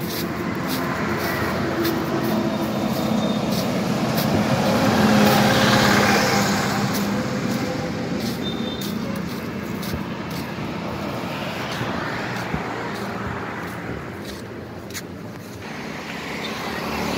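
Motor vehicle traffic: an engine rumble that grows louder about five seconds in and then fades, like a vehicle passing by.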